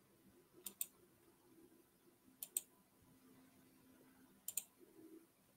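Computer mouse double-clicking three times, each a quick pair of sharp clicks, about two seconds apart, over a faint low hum.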